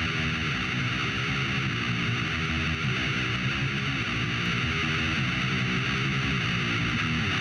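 Music: heavily distorted electric guitar playing a sequence of low notes.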